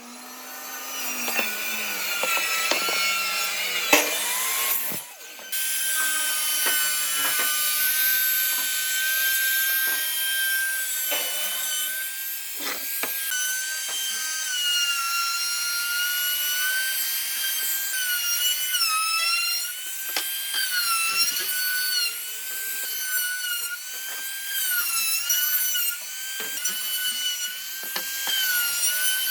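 Electric power tool running against wood, a steady high-pitched motor whine that wavers up and down in pitch through the second half as the load changes, with a short break about five seconds in.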